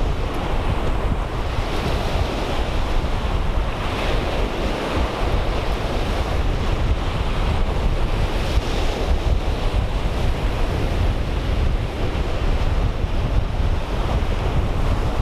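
Wind buffeting the microphone in a steady low rumble, over small waves breaking and washing on the shoreline.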